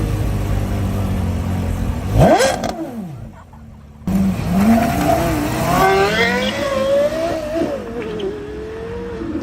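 Porsche Carrera GT's 5.7-litre naturally aspirated V10 running, with one sharp rev blip about two seconds in. After an abrupt cut it revs up and down repeatedly through the rest.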